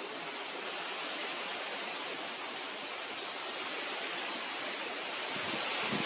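Steady hiss of outdoor background noise, with a few faint ticks and no bird call.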